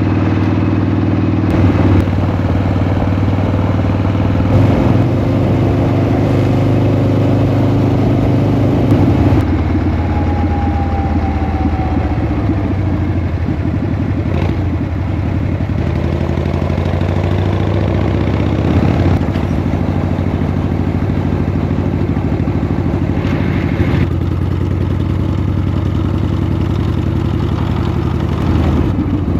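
1979 Harley-Davidson Shovelhead V-twin motorcycle running on the road, its engine note dropping about nine seconds in and changing again near the end.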